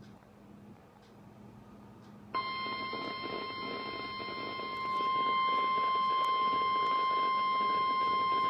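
NOAA Weather Radio's 1050 Hz warning alarm tone. After about two seconds of faint receiver hiss, a steady single-pitched beep starts suddenly over radio static and grows louder about five seconds in. It signals that a warning is about to be broadcast.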